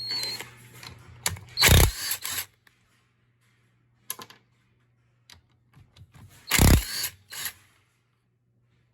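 Hand-tool and metal-part handling during an engine teardown: two short, loud knocks about five seconds apart, with a few fainter clicks between them, over a low steady hum.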